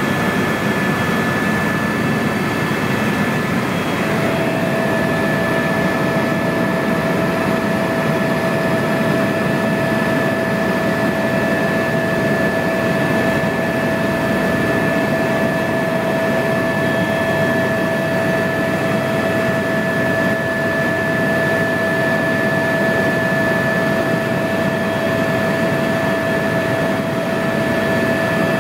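Eurocopter EC130 helicopter in flight, heard from inside the cabin: a steady rush of turbine and rotor noise with a constant high whine. A second, lower steady whine joins about four seconds in.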